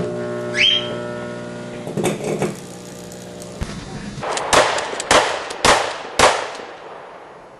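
Microwave oven running with a steady electrical hum that cuts off sharply about three and a half seconds in. After a short pause come four loud, sharp bangs about half a second apart, each trailing off.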